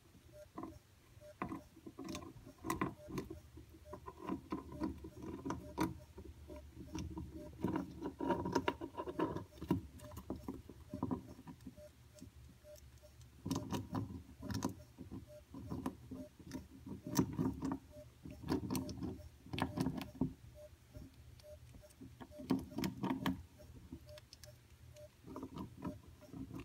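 Baby white-tailed antelope squirrel gnawing on a hard rodent block, in irregular bouts of quick crunching and scraping clicks with short pauses between them.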